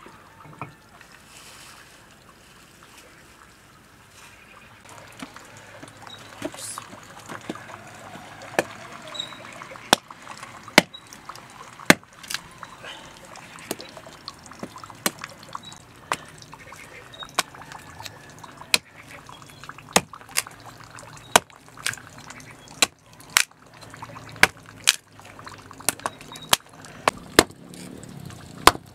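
Sharp knocks, roughly one a second, starting a few seconds in, over faint sloshing of liquid.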